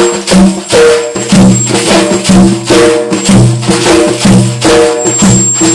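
Instrumental interlude of the backing music: a melody over a steady percussion beat of about three hits a second.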